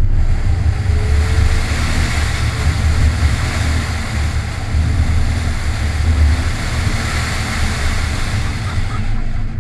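A 2002 Lexus IS300's 2JZ-GE inline-six running hard under load through an autocross course, its deep engine note rising and falling, under a heavy rush of wind noise.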